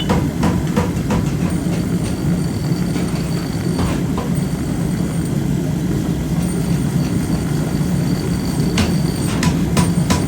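Factory machinery running with a steady low hum, with scattered sharp metallic knocks, a few in the first second and several more near the end.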